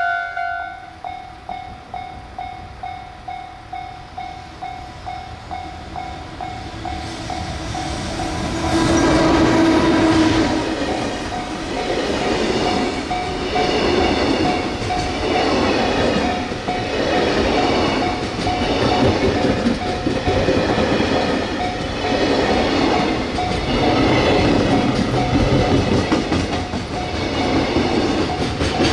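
Japanese level-crossing warning bell ringing steadily at about two strokes a second. About eight seconds in, a train sounds a short horn and then passes at speed, its wheels clattering over the rails in a regular rhythm while the crossing bell keeps ringing.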